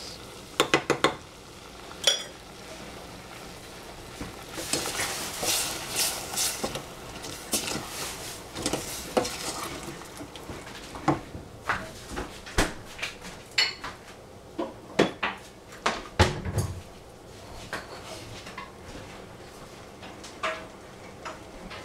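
A wooden spoon stirs chopped rhubarb in a stainless steel saucepan, with scattered sharp knocks of spoon on pan and one duller thump. Near the start come a few quick clicks and a stretch of scraping from a lemon zester working over the pan.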